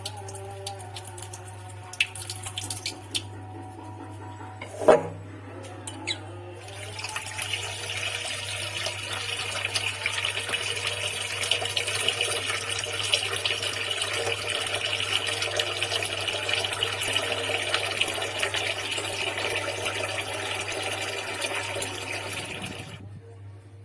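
Water running steadily from a kitchen tap for about sixteen seconds and then shut off, after a few clicks and knocks of handling, with one sharp knock about five seconds in. A low steady hum sits underneath throughout.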